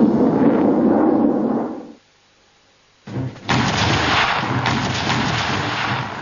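Loud rumbling blasts like explosions. The first fades out about two seconds in, and after a second of silence a second one starts suddenly and runs on, with more hiss.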